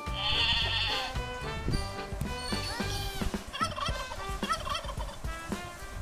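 Turkey gobbling: a fast rattling gobble in the first second, followed by further gobbling calls, over background music.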